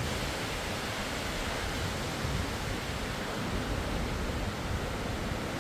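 Blizzard wind, a steady rushing noise with an unsteady low rumble from gusts buffeting the microphone.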